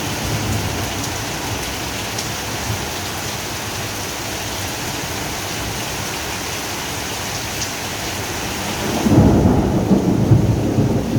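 Heavy rain pouring down in a steady hiss, with low thunder rumbling underneath. About nine seconds in, a loud rumble of thunder breaks in and rolls on.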